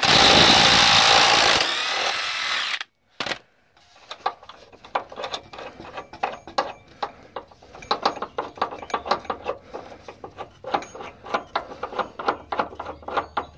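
A power tool driving a socket on the truck's front cab body mount bolt for about three seconds, loosening it, its pitch gliding as it slows near the end. Then a long run of light, irregular metal clicks as the loosened bolt is worked by hand.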